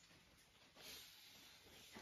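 Near silence: basement room tone, with a faint hiss about a second in.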